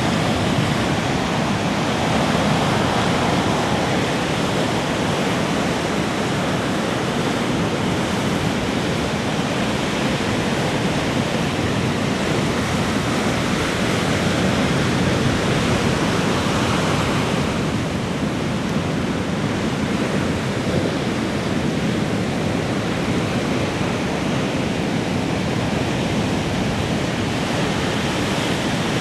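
Ocean waves washing onto a beach: a steady, unbroken rush of surf with only slight swells in loudness.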